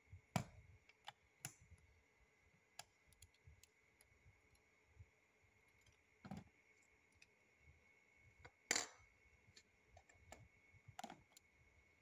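Faint, scattered clicks and light clacks of plastic Lego bricks being handled and pressed onto a brick-built belt buckle, the loudest about half a second in and again near nine seconds.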